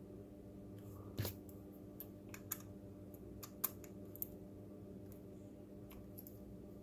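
Faint scattered clicks and taps of small plastic robot-kit parts being handled and screwed together, the sharpest one about a second in, over a steady low hum.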